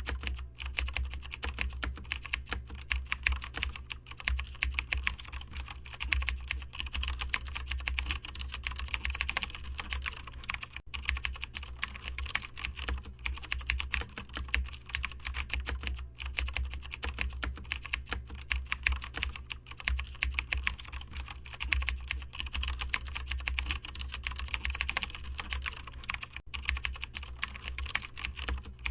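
Continuous typing on a computer keyboard: a dense, irregular run of key clicks that never stops, over a steady low hum.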